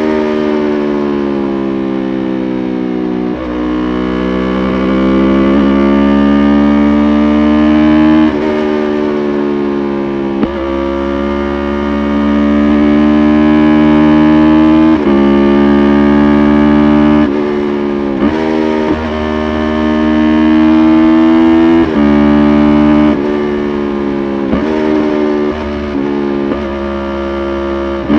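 Yamaha YZF-R3's 321 cc parallel-twin engine running hard. Its pitch climbs steadily for a few seconds, then drops sharply, again and again, as it is shifted up through the gears, with shorter throttle blips and drops later on.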